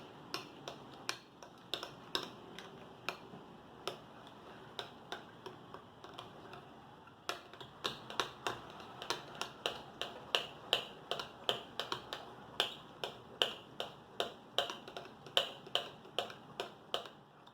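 A spoon clicking against a bowl while stirring slime mixture: sharp clicks at an uneven, sparse pace at first, then quicker at about three a second from about halfway.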